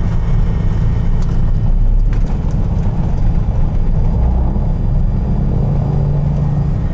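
Cessna 421C's geared, turbocharged flat-six piston engines running at idle after start, heard inside the cabin as a steady, loud, low drone.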